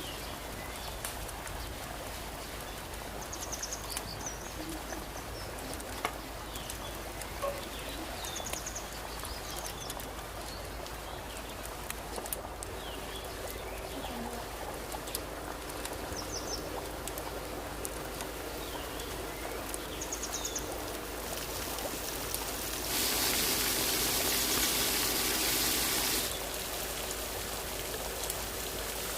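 Steady sizzling of frying with scattered crackling pops, and a few short bird chirps in the background every few seconds. Near the end a louder rush of noise lasts about three seconds, then drops back.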